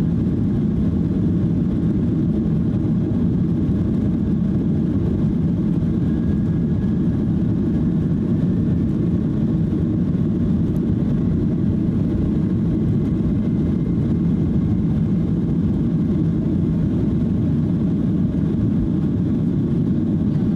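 Boeing 737-800's CFM56-7B engines at takeoff thrust, heard from inside the cabin during the takeoff roll: a loud, steady, low rumble with the wheels running on the runway.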